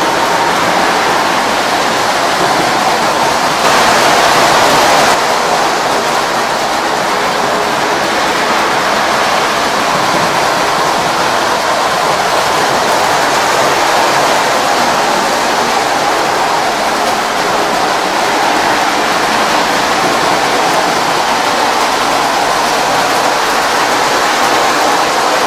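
Postwar Lionel O-gauge trains running on three-rail tubular track: a steady rushing rumble of wheels on the rails and motors, briefly louder about four seconds in.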